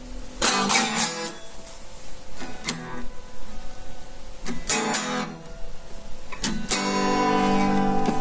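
Guitar strummed in short, separate chords with pauses between them, then a chord left ringing near the end.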